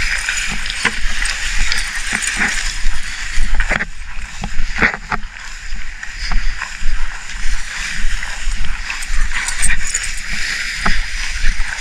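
Footsteps swishing through tall grass, the stems brushing against legs with about two steps a second.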